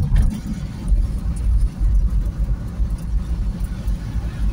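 Car driving along a wet highway in heavy rain, heard from inside the car: a loud, uneven low rumble of road and wind noise.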